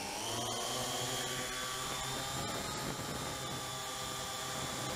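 Syma X8C quadcopter's motors and propellers, heard up close through its onboard Runcam HD camera. The pitch rises in the first moments as it spools up and lifts off from the grass, then holds a steady whine.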